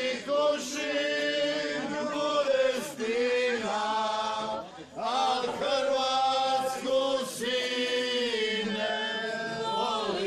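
A group of people singing together in long held phrases, with a brief break between phrases about five seconds in.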